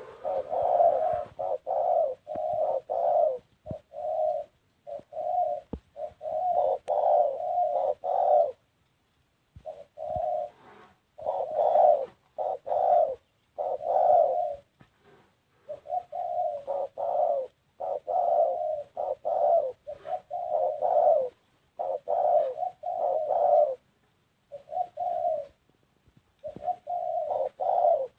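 Spotted dove cooing: a long series of short, low coos repeated in runs, with brief pauses between the runs.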